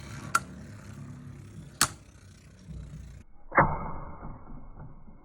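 Dragoon V and Dranzer V Beyblade spinning tops whirring in a stadium, with sharp clacks when they strike each other. A hard collision comes about three and a half seconds in, followed by a quick rattle of small knocks.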